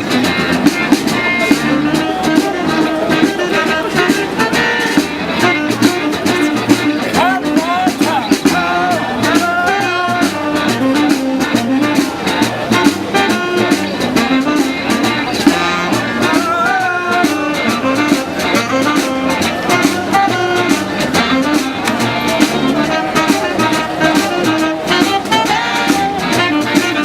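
A street band playing a lively, funky tune with a steady beat.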